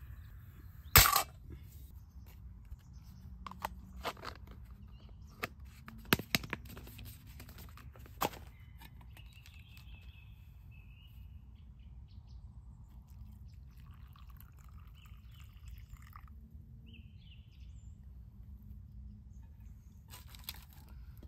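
A few sharp clicks and knocks, the loudest about a second in and the rest spread over the next seven seconds. After that come faint bird chirps over a low steady outdoor background.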